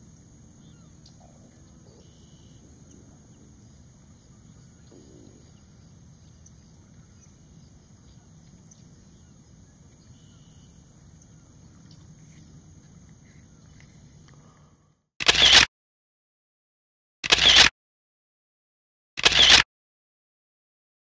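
Faint, high-pitched pulsing at about three to four pulses a second over a low outdoor rumble, which cuts off about three-quarters of the way in. Then three loud, short camera shutter releases, about two seconds apart, with dead silence between them.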